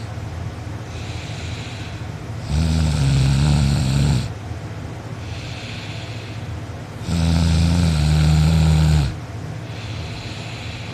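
A sleeping person snoring loudly: two long, low snores, each about two seconds, roughly four and a half seconds apart, with quieter breathing between them.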